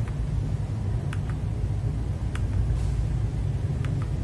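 Steady low rumble, with a few sharp keyboard clicks on top coming in quick press-and-release pairs about once a second. The clicks are keys on a mechanical keyboard with Kailh Box Brown switches, pressed to cycle its backlight modes.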